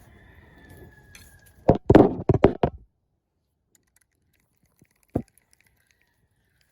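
A quick run of five or six loud knocks about two seconds in, then one more sharp knock a few seconds later.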